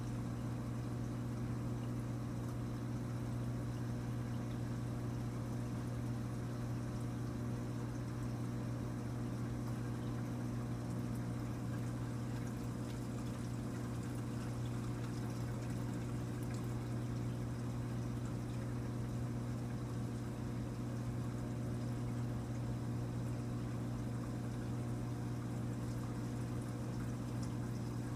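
Aquarium pump humming steadily while water pours and trickles through the tank's circulation, unchanging throughout.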